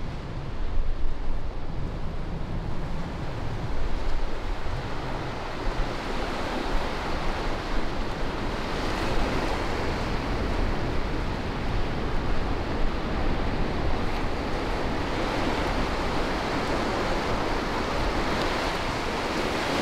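Surf breaking and washing up a sandy beach in a steady rush, with wind gusting on the microphone.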